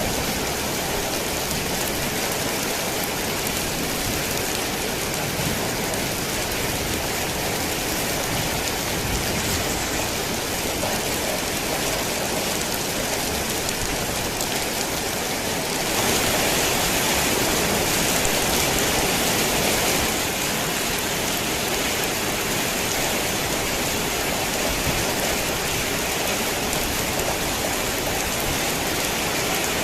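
Heavy rain falling steadily on a tin roof, a dense, even hiss that swells louder for a few seconds just past the middle.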